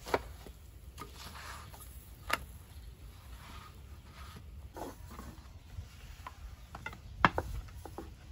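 Scattered wooden clicks and knocks of hand bread-making: a wooden paddle tapping and scraping on a domed iron sac griddle and a long rolling pin working on a wooden board. Three sharper knocks stand out: one at the start, one a little over two seconds in, and one near the end.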